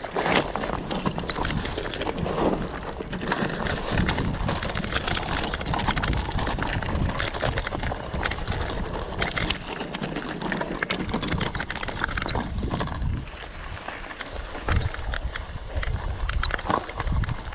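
Mountain bike clattering and rattling as it rides over a rough natural trail: a dense, irregular run of clicks and knocks that goes on without a break.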